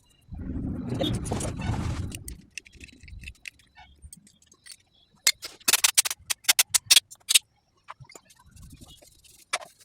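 Royal Enfield Thunderbird 350X single-cylinder engine running briefly for about two seconds. A few seconds later comes a quick run of sharp clicks and rattles.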